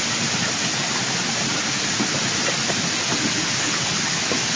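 A steady, even rushing hiss that does not change, with a few faint footsteps on the stone path.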